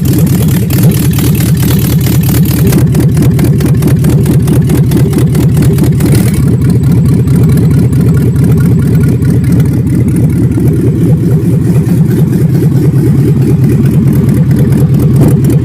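A GM 5.3-litre V8 gasoline direct-injection engine running loud and rough, with fast, uneven pulsing. It is misfiring with cylinder 7 not firing, and the owner takes the exhaust, muffler or catalytic converter, to be choked.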